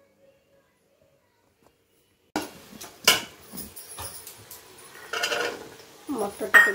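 Near silence, then from about two seconds in a steel ladle clinking and scraping against a large aluminium cooking pot as a potato curry is stirred. Green peas are tipped in from a steel bowl, and there is a sharp knock about three seconds in.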